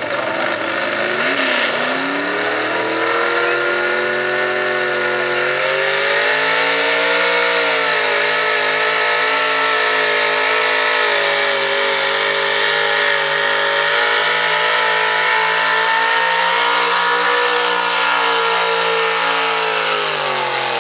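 A pull truck's engine at full throttle as the pickup launches and drags a weight-transfer sled down the track: it revs up over the first few seconds, wavers, then holds a high, steady pitch under heavy load, with the revs dropping near the end.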